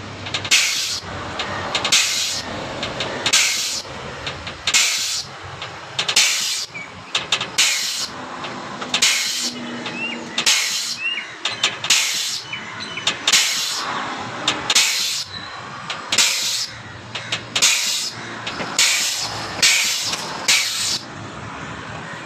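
100-ton air-over-hydraulic jack pumping on compressed air, its air motor giving a sharp hiss of exhaust air about every second and a half; the hissing stops about 21 seconds in.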